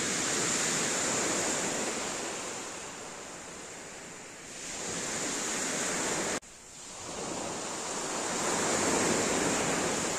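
Sea waves breaking on a pebble beach, the surf swelling and falling back in slow surges. The sound drops off abruptly about six seconds in, then another wave builds.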